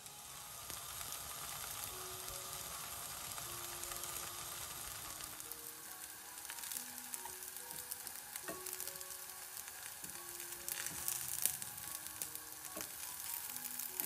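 Oat and shiitake batter strips frying gently in oil in a nonstick pan over low heat: a steady soft sizzle with scattered crackles that grow sharper in the second half.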